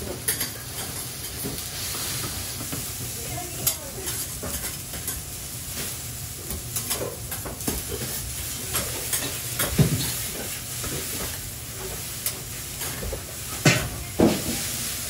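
Thin batter crepes for Hiroshima-style okonomiyaki sizzling steadily on a hot steel teppan griddle as shredded cabbage, tempura scraps and bean sprouts are piled on. A few sharp clunks of metal utensils and pots cut in, the loudest about ten seconds in and twice near the end.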